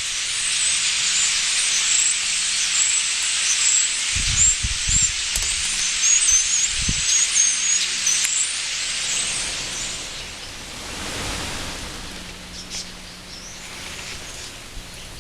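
Massed calls of a very large flock of birds, a dense chattering din of countless overlapping chirps that fades after about nine or ten seconds. A few low thumps come between about four and seven seconds in.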